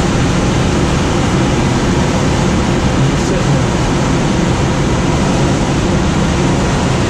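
Steady rush of air over a glider's canopy in flight: a loud, even hiss with no engine.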